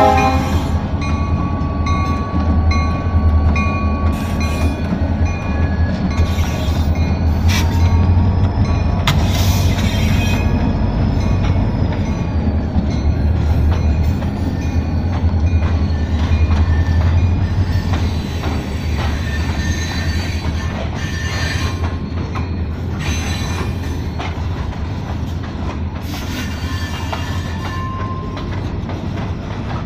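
Freight train cars rolling past at a grade crossing: a steady low rumble of steel wheels on rail, with scattered sharp knocks and clanks and occasional thin wheel squeals. The rumble eases gradually over the second half.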